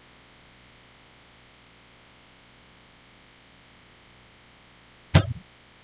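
Faint, steady room tone with no distinct sound from the hook or yarn. One short, sharp noise comes about five seconds in.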